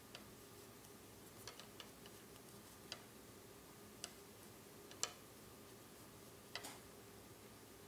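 Wooden knitting needles clicking quietly as stitches are knitted: short irregular clicks about once a second, a quick cluster near the start and a double click near the end, over a faint steady hum.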